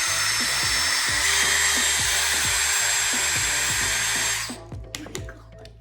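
Small electric drill with a thin 5/64-inch bit running steadily, boring through the plastic of an action figure; its whine steps up in pitch about a second in and cuts off suddenly about four and a half seconds in, followed by a few light clicks.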